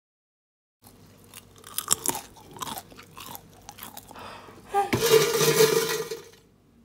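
Crispy air-fried tofu crunching close to the microphone. Sharp crackles start about a second in, and a loud dense crunch comes near the end.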